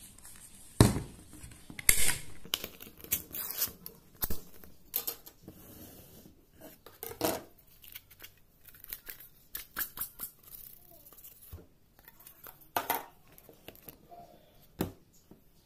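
Metal can of luncheon meat being opened and emptied: a string of sharp metallic clicks and scrapes from the can's lid, loudest about a second and two seconds in, then knocks as the can is tipped and the meat block comes out onto a wooden cutting board.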